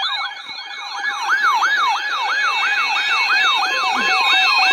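Canadian emergency alert attention signal: an electronic tone sweeping up and down about three times a second, with steady higher tones held over it. It announces a broadcast Environment Canada severe thunderstorm warning.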